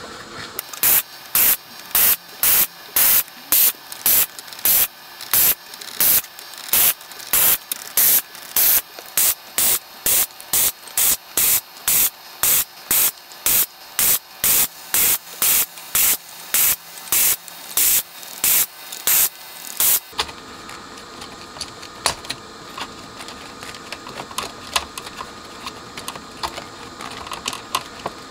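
Desoldering gun's vacuum pump sucking molten solder off circuit-board switch pins in short, loud hisses, about two a second. After about twenty seconds the hissing stops, leaving only faint clicks.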